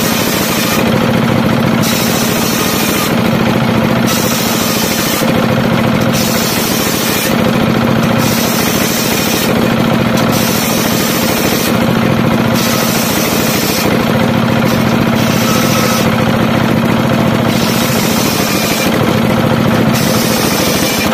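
Circular sawmill blade driven by a 24 hp diesel engine, ripping mahogany planks under load. The engine and blade drone steadily, while a higher cutting hiss comes and goes about every one to two seconds.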